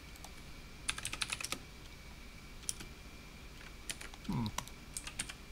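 Typing on a computer keyboard: a quick run of about seven keystrokes around a second in, then scattered single key clicks, over a faint steady high-pitched tone. A brief low sound comes about four seconds in.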